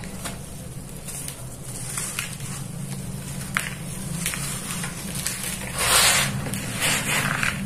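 Dry red dirt crumbling and crushed between fingers, giving soft crackles and a grainy, powdery hiss. It is loudest about six seconds in, as hands press down and sweep through the loose powder.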